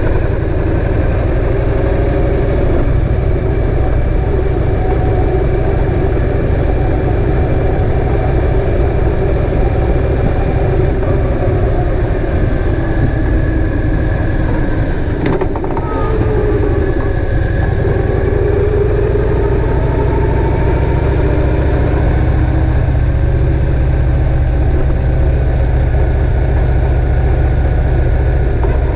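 Kawasaki VN2000's big V-twin engine running steadily, a loud low rumble whose pitch rises and falls a little about halfway through. A single short click sounds about fifteen seconds in.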